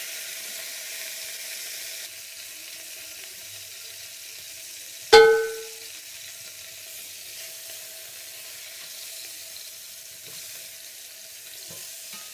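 Frozen chicken pieces frying in oil in a pressure-cooker pot: a steady sizzle, with a spatula turning them. About five seconds in comes a single loud metallic clang that rings briefly.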